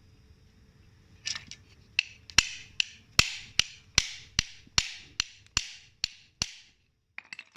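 A run of a dozen sharp knocks, evenly spaced at about two and a half a second, each ringing briefly and dying away. A few softer clicks come before the run and again near the end.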